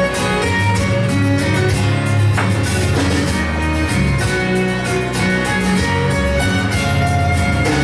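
Background music: guitar-led country music with plucked strings.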